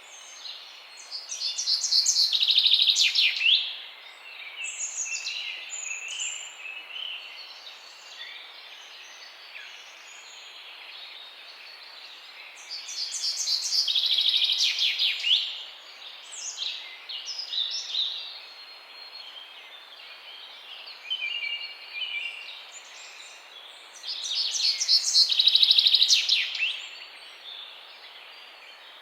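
Songbirds chirping. One bird sings a loud song of rapid notes three times, about every eleven seconds, and other birds call with short chirps in between, over a steady background hiss.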